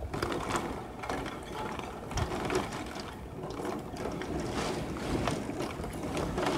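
Heavy rain hitting a window and the house: a steady hiss with irregular taps and clicks of drops striking the glass.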